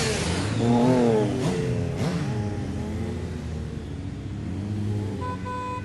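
Several motorcycles revving as they pull away, engine pitch rising and falling in repeated sweeps. A steady horn tone starts near the end.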